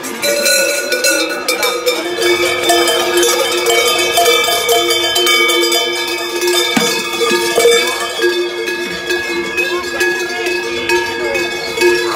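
Several large cowbells worn strapped at the waist ringing and clanging together as the wearers move, giving a continuous jangle of overlapping metallic tones at different pitches.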